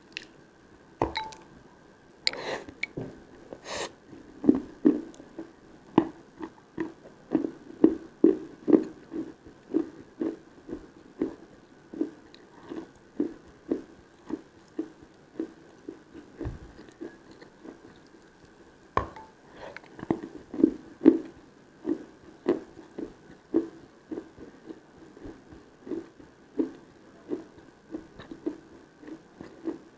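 Close-miked chewing of dry chalk. A few crisp bites come in the first seconds, then steady rhythmic chewing at about two chews a second. After a pause past the middle, another crisp bite comes and the chewing starts again.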